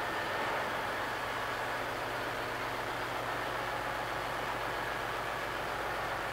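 Steady drone of a container ship's engine-room machinery running: a dense, unchanging roar with a low hum beneath it.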